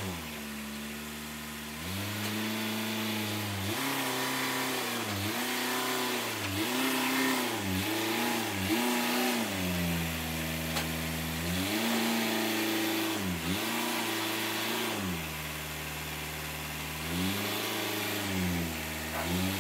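1962 Land Rover Series 2A's 2.25-litre four-cylinder diesel engine running while the truck is manoeuvred forward and back, its revs rising and dipping again and again, with a steadier stretch at low revs late on.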